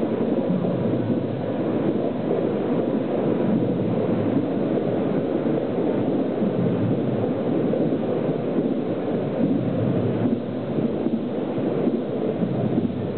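Continuous low rumbling din filling a vast hall, steady and dense with no clear beat or separate events.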